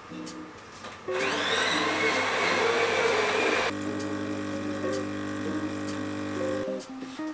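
Jura fully automatic coffee machine making an espresso. About a second in, its grinder runs with a rising whine for two to three seconds and cuts off, then the pump hums steadily while the espresso pours, stopping shortly before the end.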